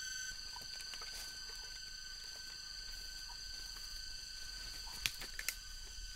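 Steady high-pitched drone of jungle insects, several constant tones held without a break. A couple of sharp snaps or knocks come about five seconds in.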